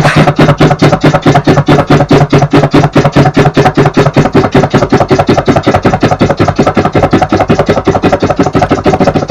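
Loud, rapid, evenly repeating electronic stutter, about eight pulses a second over a steady low pitched tone, like computer audio stuck in a loop.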